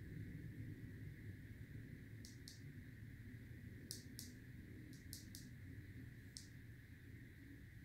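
Faint low room hum with a handful of short, sharp clicks, mostly in pairs about a quarter second apart, from about two seconds in.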